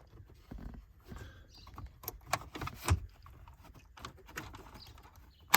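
Scattered clicks and knocks of hands and a tool working on the plastic dashboard trim and AC control panel, with a sharp click near the end.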